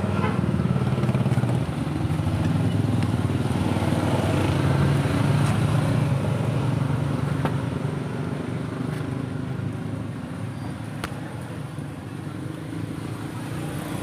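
A motor vehicle engine running steadily, a low rumble that dips and then swells again near the end. A few light clicks come from the wire fan grille being handled.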